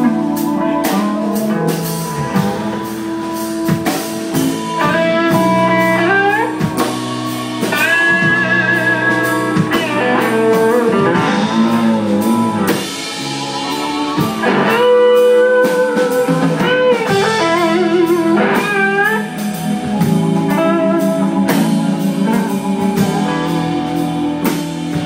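Live blues band playing: electric guitar leads with notes that bend and waver, over a drum kit keeping a steady beat.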